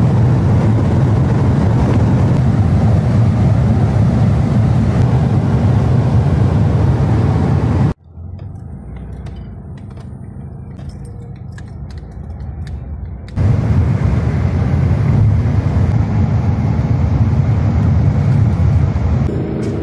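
In-cabin sound of an air-cooled Volkswagen Beetle driving, its flat-four engine and road noise running as a steady loud drone. About eight seconds in it cuts suddenly to a much quieter stretch with scattered light clicks. About five seconds later the loud driving noise returns just as suddenly.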